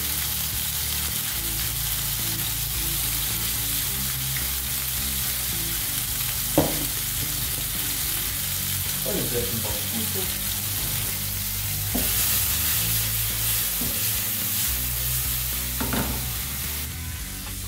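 Chicken strips sizzling steadily in hot vegetable oil in a frying pan, with a single sharp knock about six and a half seconds in.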